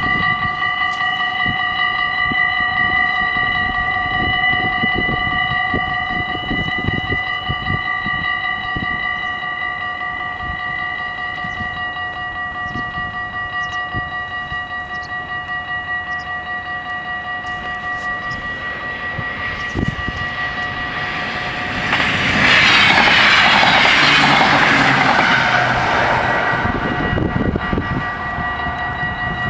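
Dutch level-crossing warning bells ringing steadily. About two-thirds of the way in, an NS ICMm Koploper intercity train rushes past for about five seconds, the loudest part, then fades while the bells keep ringing.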